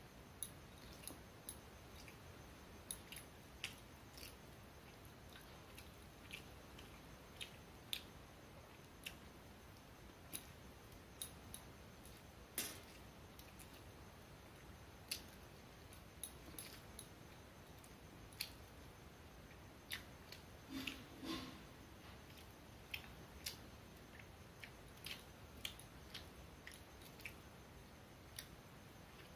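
Eating by hand: fingers mashing rice with egg and potato curry on a steel plate, and chewing, heard as scattered short wet clicks and smacks, one or two a second, over quiet room tone.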